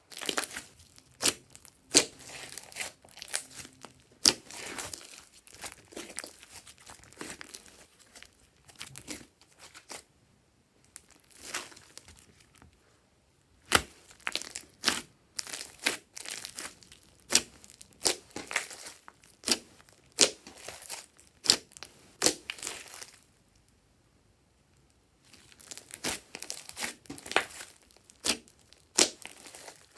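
Hands squishing and kneading glossy slime: irregular sticky pops and crackles as trapped air is pressed out, with two short pauses.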